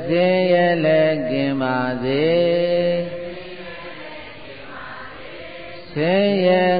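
A single voice chanting a Burmese Buddhist metta (loving-kindness) verse in a slow, drawn-out melody. One long line is sung, then there is a quieter pause of about three seconds, and the next line begins near the end.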